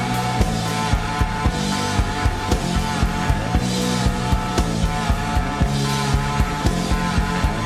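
Instrumental psychedelic desert-rock music: sustained electric guitars over bass and a steady drum beat.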